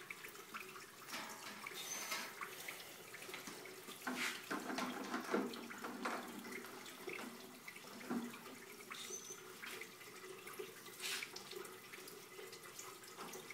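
Faint trickling and splashing of wort running from a siphon hose, with a few light clicks and knocks scattered through it.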